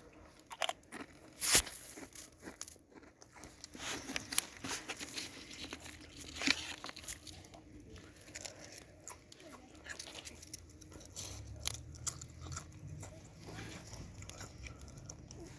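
Wood campfire crackling, with irregular sharp pops and snaps, the loudest about a second and a half in.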